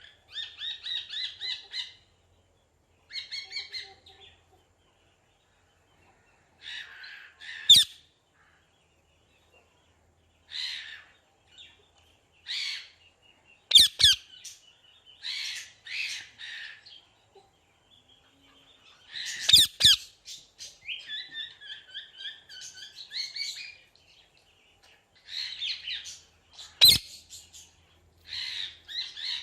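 Parrot calling in bursts of rapid, repeated notes with pauses between them, broken about four times by sharp, loud clicks that stand out as the loudest sounds.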